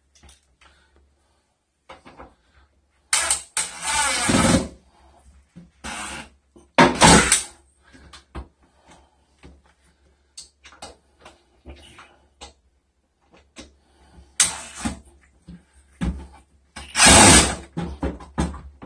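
Cordless drill driving screws through the side of a recessed medicine cabinet into the wall, in several short bursts, with clicks and knocks of handling between them.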